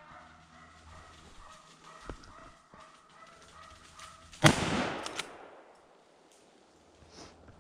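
A single rifle shot from a Blaser R8 in 9.3x62: one sharp crack about four and a half seconds in, followed by about a second of echo dying away through the woods.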